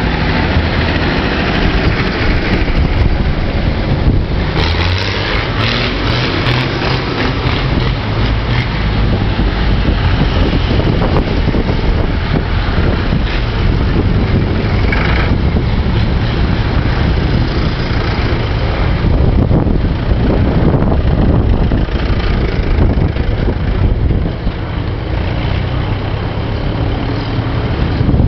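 Diesel tractors, vintage and modern, driving past one after another with their engines running steadily, mixed with wind buffeting the microphone.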